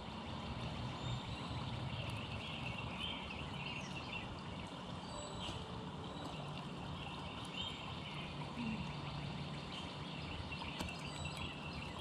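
Outdoor ambience: a steady low rumble and hiss, with faint scattered bird chirps. A few small clicks come as a male northern cardinal pecks at sunflower seeds in a window feeder.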